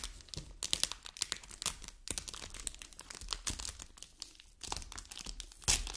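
Merchandise packaging crinkling and rustling in irregular short crackles as it is handled and opened.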